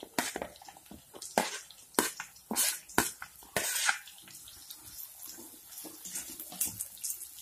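Chopped onions sizzling as they hit hot oil in a nonstick kadai, with clatters and scrapes of the plate and spatula against the pan: a run of sharp ones in the first four seconds, then lighter stirring scrapes.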